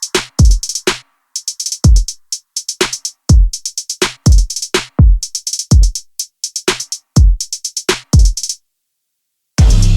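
Electronic background music: a drum-machine beat of deep kick drums that drop in pitch, with hi-hats. It stops for about a second near the end, then a fuller section of the track comes in.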